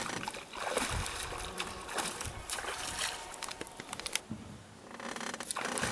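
Water splashing and sloshing, with irregular clicks and knocks and a brief quieter stretch near the end.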